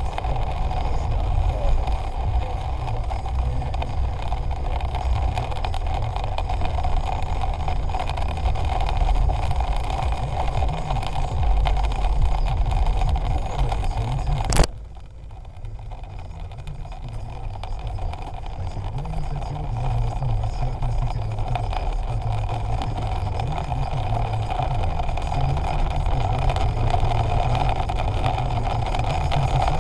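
A vehicle running and driving, a steady rumble with a mid-pitched drone. About halfway through, a sharp click, after which the sound drops and slowly builds back up.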